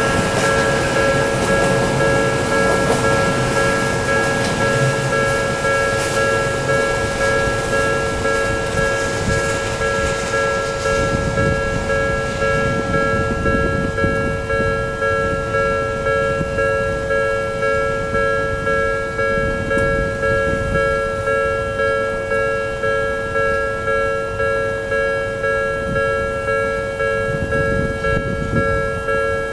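Japanese railway level-crossing alarm ringing its electronic tone in quick even beats, while an Odakyu Line train runs over the crossing, loudest in the first dozen seconds and then fading.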